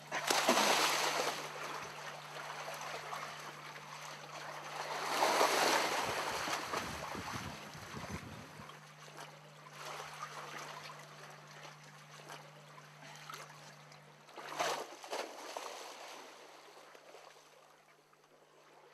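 Sea water splashing and sloshing around swimmers, coming in swells: the loudest about a second in and again around five seconds in, with a short splash near fifteen seconds.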